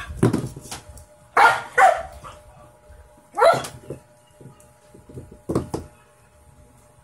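Shih-tzu puppy barking several short times, two barks in quick succession about a second and a half in, then single barks spaced a couple of seconds apart.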